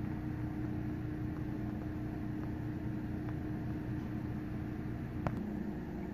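Steady machine hum of running room equipment, with a constant low tone under it, and a single sharp click about five seconds in.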